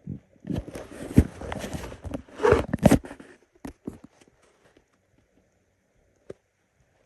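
Hungry stomach growling and gurgling, picked up close to the microphone: a loud churning stretch with sharp knocks and pops for about three seconds, then a few faint pops.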